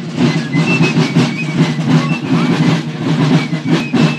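Marching drum corps beating snare and bass drums in a steady, continuous march rhythm.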